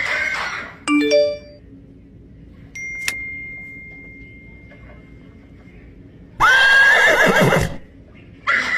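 A horse whinnying and squealing: a short call at the start, then a loud call about six and a half seconds in that lasts about a second and a half and wavers in pitch. A few short tones sound in between.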